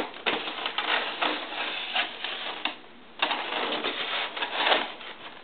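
Cardboard box being handled and slid about, a continuous scraping and rustling of cardboard and packaging with a short lull about three seconds in.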